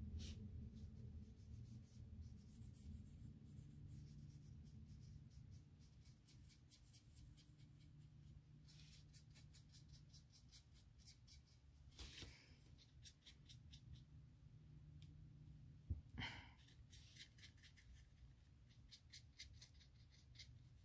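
Faint scratching of a water-brush pen's tip stroking over paper, coming in short runs of fine ticks, over a low steady room hum. A soft knock about sixteen seconds in.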